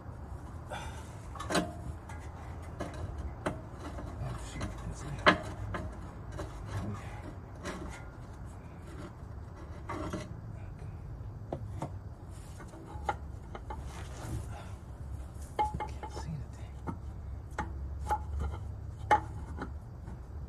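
Scattered knocks, clinks and scraping of metal parts and tools being handled as a rear engine motor mount is worked into place, over a low steady hum.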